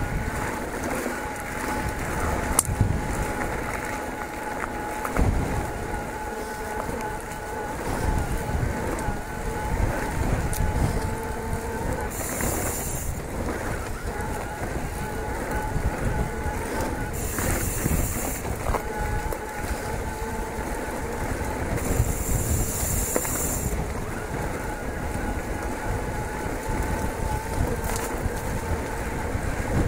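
Electric mountain bike ridden over a gravel track: tyres rumbling and rattling on the stones, wind on the microphone, and a steady whine from the bike's motor. Three times near the middle a high buzzing comes in for a second or so.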